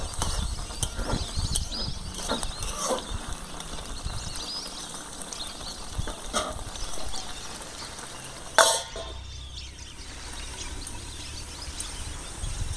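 Thick moong dal with fish heads simmering in an aluminium pan, popping and bubbling in small irregular plops. About two-thirds of the way through comes a single loud metallic clank with a short ring, as the stainless steel lid goes onto the pan.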